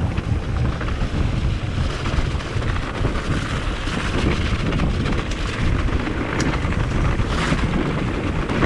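Riding noise from a Propain Ekano e-mountain bike on a trail: heavy wind buffeting on the camera microphone, mixed with rumble and rattle from the bike over the ground. A couple of sharp clicks come through in the second half.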